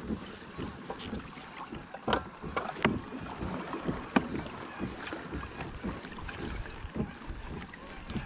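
Small sounds of a fishing kayak on the water: an uneven rustling wash with a few sharp knocks scattered through it, and wind on the microphone.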